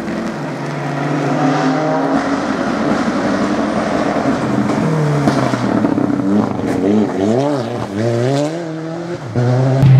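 Fiat 124 Abarth rally car's turbocharged four-cylinder engine approaching under power, its pitch climbing steadily. In the second half the revs swing up and down several times in quick succession as the throttle is worked through a tight corner.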